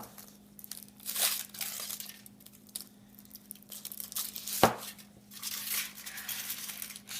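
Wrapper of a surprise egg being torn and crinkled by hand in irregular rustling bursts, with one sharp click about four and a half seconds in.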